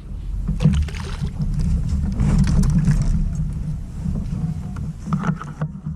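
Steady low rumble with scattered knocks and splashy noise from a fishing kayak on the water.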